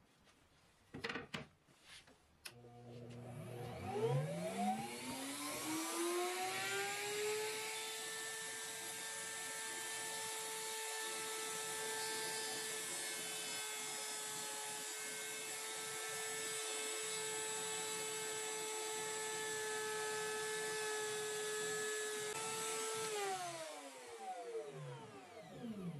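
A couple of sharp clicks, then a table-mounted router motor spins up, its pitch rising over several seconds, runs at a steady high whine, and winds down near the end as it is switched off.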